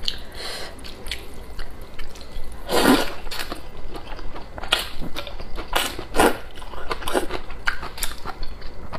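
Close-miked slurping and chewing of wide flat noodles from a bowl of spicy noodle soup: wet sucking slurps and mouth smacks in short bursts, the loudest slurp about three seconds in, followed by a run of shorter wet slurps and chews.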